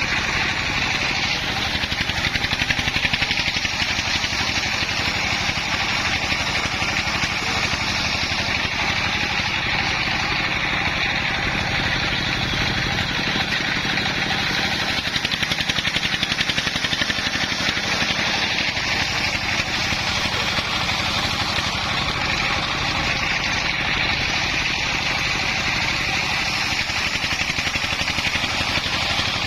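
Engine-driven homemade circular saw rig running steadily.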